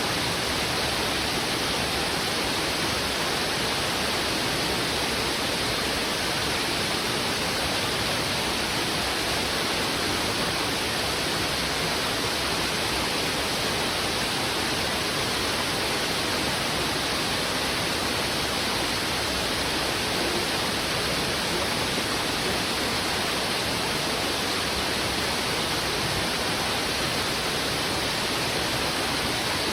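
Heavy, fast-flowing river water rushing over rocks: a steady, dense rush without breaks or changes.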